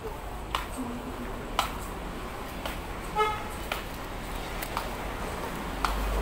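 A short vehicle horn toot about three seconds in, the loudest sound, over a steady background of busy street-market noise. Sharp taps come about once a second.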